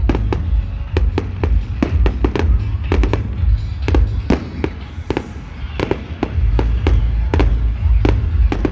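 Fireworks display: a rapid, irregular barrage of sharp bangs and crackles, several a second, over a deep, steady rumble. There is a short lull a little past halfway.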